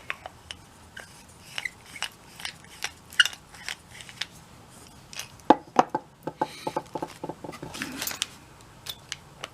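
Small metal driver bits clicking and clinking against each other and the hand driver as they are handled, with a quick run of ringing clinks a little past the middle.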